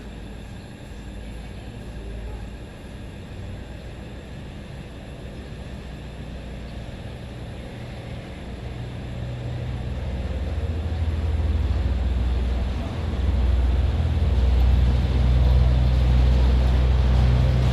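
An engine running with a low steady hum, growing louder from about halfway through.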